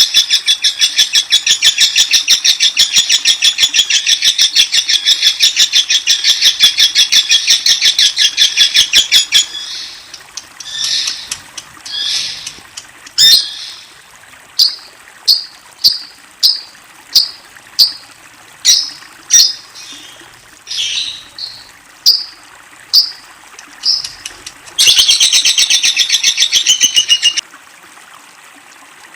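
Lovebird calling: a long, very fast, high-pitched chattering trill for about nine seconds, then a string of short single chirps at roughly one to one and a half a second, and a second burst of rapid trill near the end.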